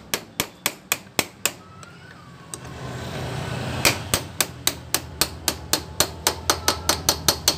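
Rapid, even hammer taps, about four a second, driving a tight-fitting rocker-arm shaft into a Yamaha Mio M3 scooter's cylinder head. They stop for about two seconds in the middle, then resume.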